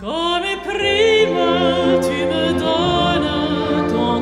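Operatic soprano voice singing over a string orchestra. It slides up into its first note right at the start, then holds long notes with a wide vibrato above steady low string tones.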